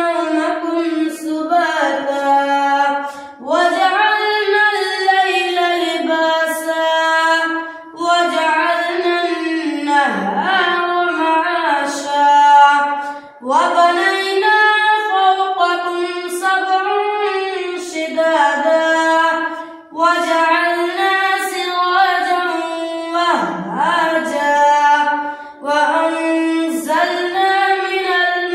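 A boy reciting the Quran aloud in melodic chanted tilawat, in long drawn-out phrases separated by short breaths.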